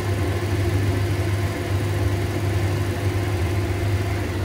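Beef strips sizzling in a frying pan, heard over a loud, steady, low mechanical hum.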